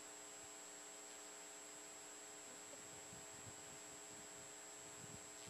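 Near silence: a faint steady electrical hum with a high whine and hiss, and a few faint low thumps in the second half.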